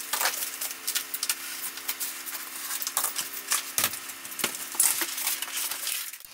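Fast-forwarded sounds of floor work: a jumble of quick clicks, taps and scrapes over a steady low hum.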